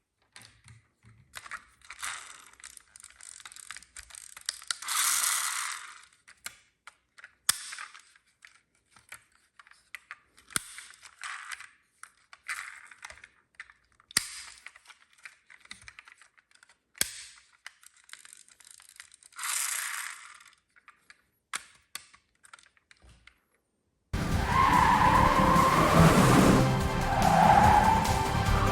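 Scattered sharp clicks and small knocks, with two short hissing swishes about a second long. Background music starts abruptly near the end.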